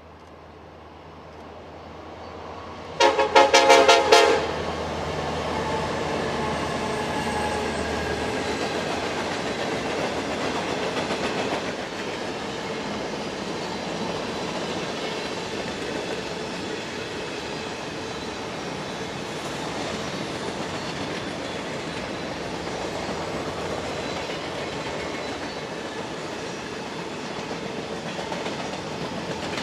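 Approaching diesel locomotive sounds a short, loud blast on its air horn about three seconds in, over a low engine hum. Then comes the steady rumble and clatter of the train rolling past.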